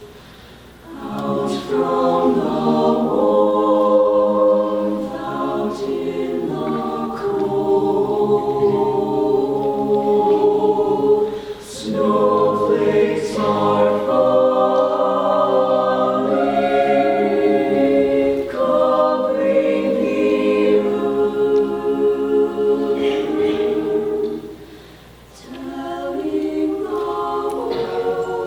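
Small mixed choir singing a cappella in several parts, phrases of held chords with brief breaths between them, about a second in, near the middle and near the end.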